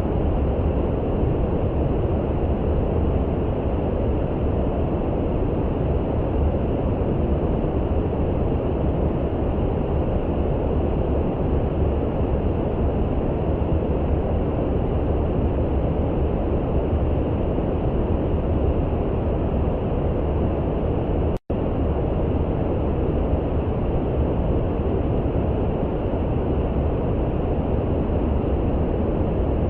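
Steady brown noise: an even, low, rumbling hiss with no changes, dropping out for a split second about 21 seconds in.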